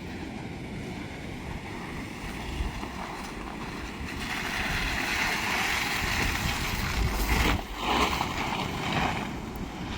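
Tank 500 SUV driving over wet, boggy ground: a low engine and road rumble under a hiss of tyres and wind that swells about four seconds in, dips briefly, then eases near the end.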